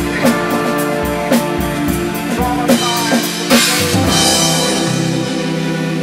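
Live rock band playing: a drum kit beating steadily under sustained electric guitar and bass notes. A cymbal crash comes about three and a half seconds in, after which the drumming thins out and the held notes ring on.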